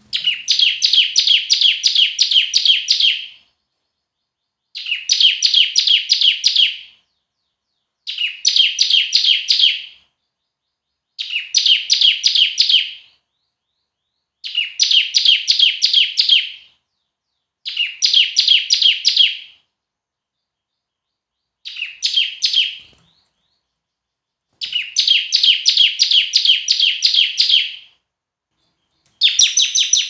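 Caged bar-winged prinia (ciblek) singing loudly: phrase after phrase of fast, evenly repeated sharp chip notes, each burst two to three seconds long, with short pauses between them.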